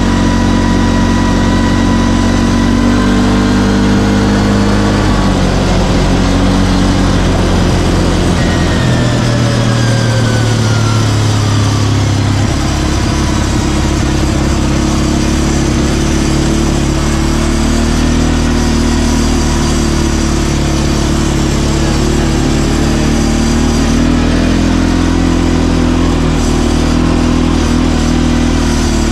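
CFMoto ATV engine running while riding, its pitch shifting up and down a few times with the throttle, over a steady rushing noise.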